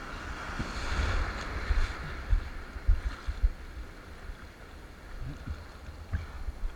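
Ocean water rushing and splashing, swelling about a second in and easing off, with wind buffeting the microphone in uneven low thumps.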